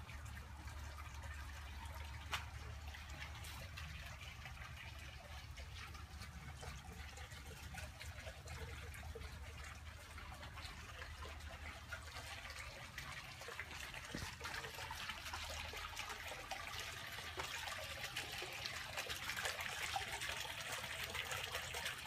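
Small pond fountain splashing water back onto the pond surface, a steady trickling spatter that grows louder toward the end.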